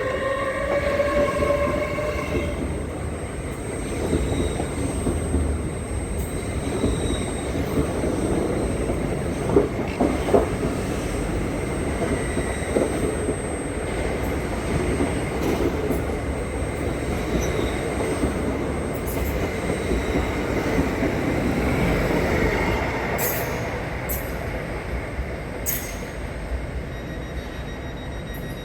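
Passenger train running on rails in a station, with a steady rumble, faint wheel squeal at times and two sharp knocks about ten seconds in. A pitched tone dies away in the first couple of seconds.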